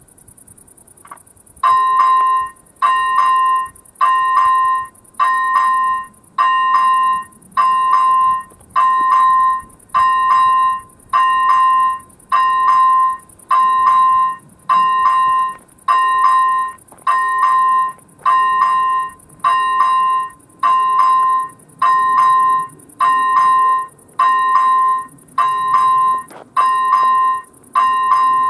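First-generation electronic warning bell of an AŽD 97 level-crossing signal starting up about two seconds in, then ringing one clear, bell-like stroke roughly once a second over a faint steady high hiss. The crossing has just been activated: the warning that a train is approaching.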